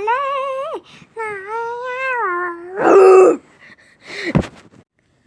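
A child's voice making wordless vocal sound effects: drawn-out, wavering, whiny cries, a louder burst about three seconds in, then a short falling swoop near the end.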